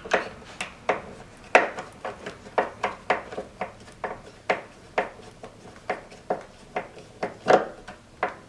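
Screwdriver turning the side-adjustment screw on a Blum soft-close cabinet hinge: a run of short, irregular clicks and small scrapes, two or three a second.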